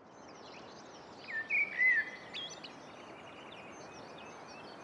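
Rural ambience: a steady soft hiss with several birds chirping and calling over it, the loudest calls about a second and a half in.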